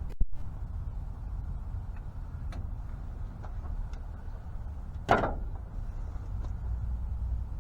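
Hand work on a truck's wiring and parts: a sharp click at the start, a few light ticks, and a louder knock about five seconds in, over a steady low rumble.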